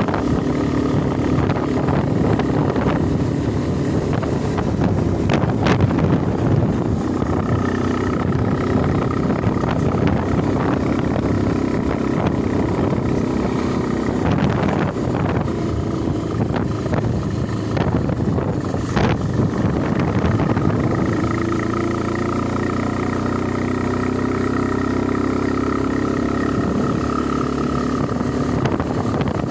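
An engine running steadily, its note shifting a little about two-thirds of the way through.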